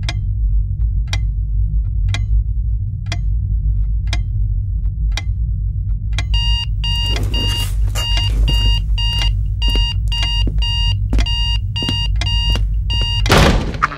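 Clock ticking about once a second over a low steady hum, then from about six seconds in an alarm clock beeping rapidly, two or three beeps a second. It ends in a short rising whoosh, the loudest moment, just before music starts.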